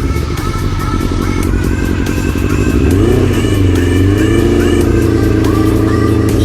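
Motorcycle engine being blipped with the throttle, its pitch swelling about three seconds in and then wavering unevenly rather than holding steady. The engine's carburetors need adjusting.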